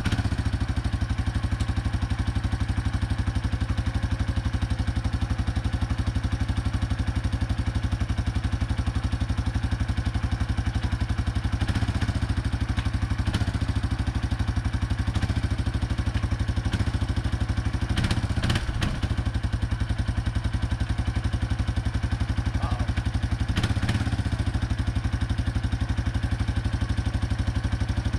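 1989 Yamaha Moto-4 350 ATV's single-cylinder four-stroke engine idling steadily, its body plastics not yet fitted. A few short clanks and knocks come over it, midway and again near the end.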